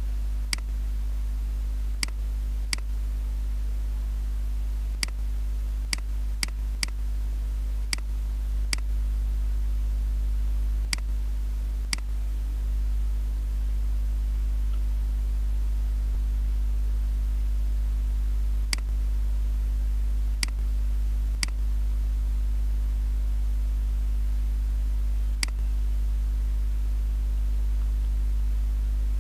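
Steady low electrical hum with hiss, and a computer mouse clicking sharply now and then, about fifteen clicks at uneven gaps, most of them in the first half.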